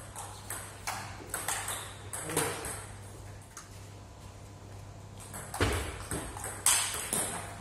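Table tennis ball clicking off bats and table in a rally, one bat faced with Dr Neubauer Viper Soft long-pips rubber. A quick run of hits in the first two and a half seconds, a pause, then another run from about five and a half seconds in.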